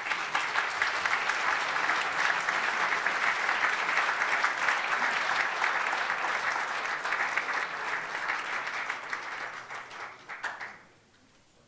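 Audience applause: dense, steady clapping from a seated crowd that thins out and stops near the end.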